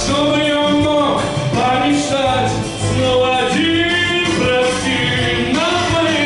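Man singing a pop song into a microphone, his voice amplified through speakers over a backing track with a Latin-American rhythm.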